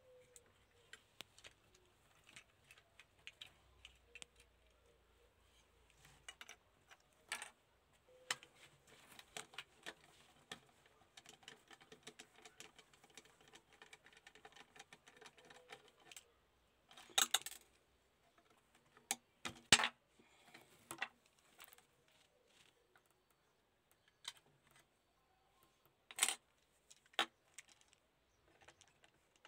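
Small metallic clicks, clinks and scraping from a screwdriver turning screws in a rusty die-cast model car body and from the body being handled. There are a few sharper, louder clinks in the second half.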